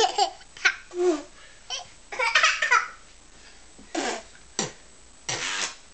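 Toddlers babbling and laughing in short bursts, with a longer high-pitched giggling spell about two seconds in.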